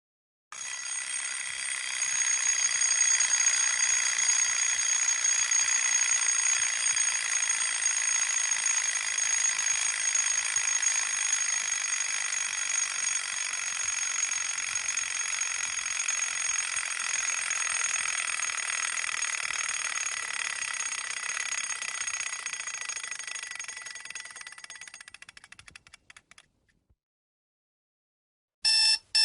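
Alarm clock ringing continuously, then fading and breaking up into separate strokes until it stops. After a short silence a new ring starts in rapid pulses, about two a second.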